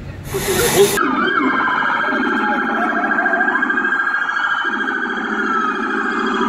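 Emergency-vehicle sirens wailing, with several rising and falling tones overlapping. A short burst of hiss comes just before them, under a second in.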